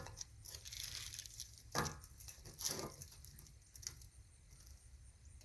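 Tools being handled on steel stock while measuring and marking: a few short, light clicks and clinks, about four of them, over a low hum.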